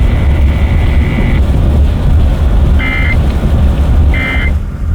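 Emergency Alert System end-of-message data bursts: two short buzzy electronic bursts about a second and a quarter apart, over a steady low rumble. A steady high tone sounds for about the first second and a half.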